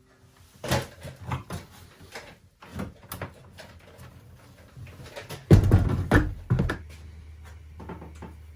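Knocks, scrapes and clunks of a gas combi boiler's casing being handled and hooked onto its wall bracket, with a heavy thump cluster about two thirds through. A steady low hum starts just after.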